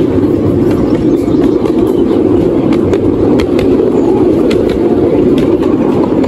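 Miniature railway train running along the track: a steady rumble of wheels on rails, with irregular clicks as the wheels cross rail joints and points.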